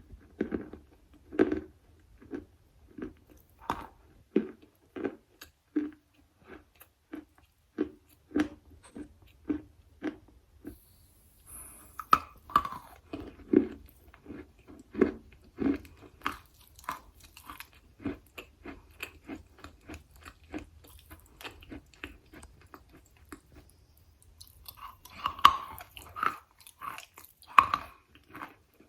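Close-miked chewing of a hard, chalky non-food material: steady wet crunching, about one to two chews a second, with louder crunching bites near the end.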